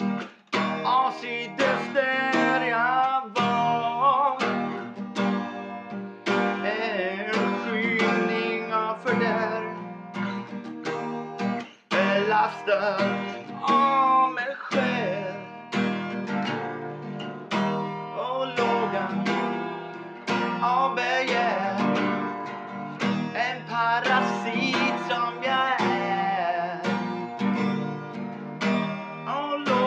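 A man singing while strumming chords on a guitar, with two short breaks, about half a second in and near twelve seconds.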